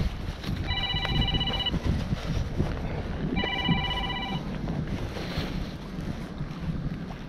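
Mobile phone ringing: two rings with a rapidly pulsing tone, each about a second long and about two and a half seconds apart, over the steady rumble of wind on the microphone.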